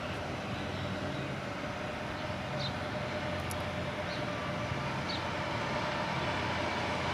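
Fire truck's diesel engine running as it approaches, a steady rumble growing slowly louder.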